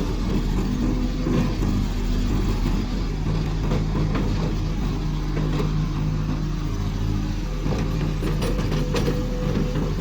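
Old Hitachi UH25-3 excavator's diesel engine running steadily, with scattered light knocks and clicks from the machine.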